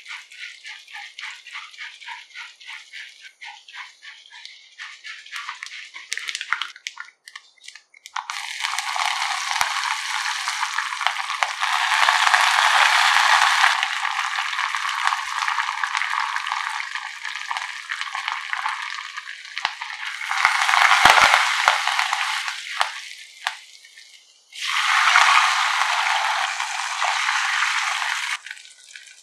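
Dal tempering frying in hot oil in a nonstick pan. First it crackles with light, regular pops, then it sizzles loudly as chillies go into the oil, with another loud burst of sputtering midway. Near the end comes a sudden loud hiss as water is poured onto the hot oil.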